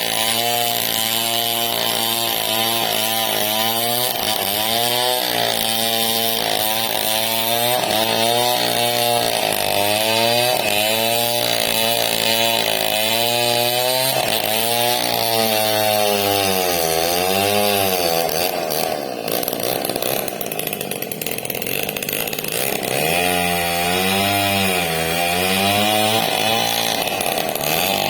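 Two-stroke chainsaw cutting through a large log, its engine pitch dipping and recovering over and over as the chain loads in the cut. About two-thirds of the way through it runs steadier for a few seconds, then the rising and falling starts again.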